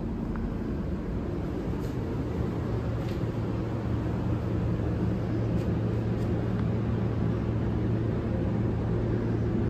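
Steady low mechanical hum with a rushing noise from shop machinery, cutting off suddenly at the end.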